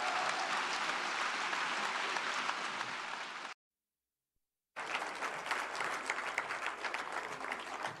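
Audience applauding. The applause cuts off abruptly a little over three seconds in, leaving about a second of dead silence, then applause starts again with a low hum under it.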